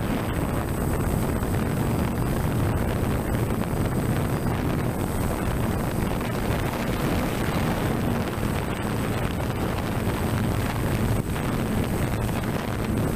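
Steady wind rushing and buffeting on the microphone, with a faint steady high-pitched whine above it.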